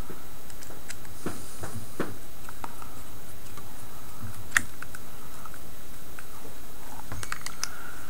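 Scattered small clicks and ticks of a screwdriver tightening the screws of a power-cord plug, the plug body shifting in the hands as it turns. The sharpest click comes about halfway through, with a quick run of clicks near the end.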